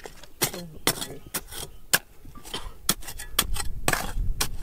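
Irregular sharp clicks and clinks of hard objects knocking together, about a dozen strikes, with a low rumble building near the end.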